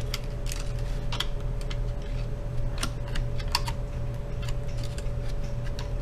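Irregular light clicks and taps of hands and a small screwdriver handling parts inside an opened laptop, over a steady low hum.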